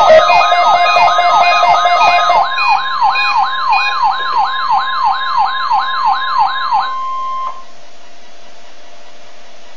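Weather radio receiver's alarm sounding a fast up-and-down warbling siren, about three sweeps a second, over the steady 1050 Hz NOAA Weather Radio warning alarm tone, the tone that automatically activates alert receivers. The warble stops about seven seconds in and the steady tone soon after, leaving radio hiss.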